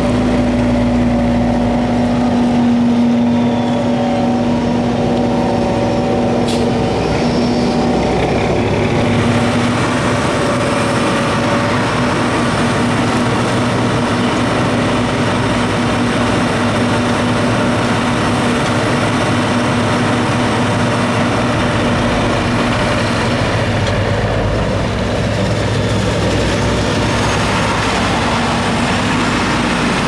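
Self-propelled forage harvester chopping standing corn for silage, its engine and cutterhead running steadily: a loud, steady drone with a constant hum in it.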